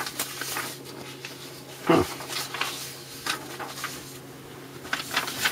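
Papers and books being shuffled and moved about by hand: scattered rustles and light knocks, with a short murmur about two seconds in and a steady low hum underneath.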